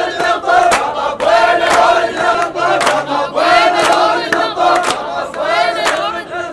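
A crowd chanting together in repeated short phrases, with hand claps in time, about two a second.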